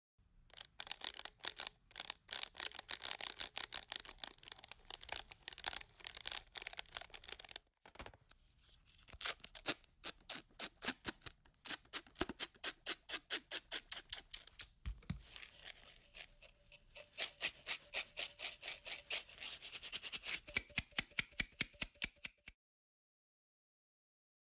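Soundtrack of a short stop-motion animation: fast, evenly spaced rattling clicks, several a second. There is a short break about eight seconds in, and the sound cuts off about two seconds before the end.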